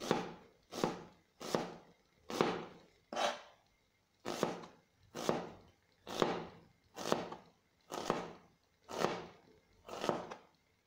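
Chef's knife slicing a white onion into thin half-moon strips on a plastic cutting board: about a dozen even, unhurried strokes, a little over one a second, each cut ending sharply on the board.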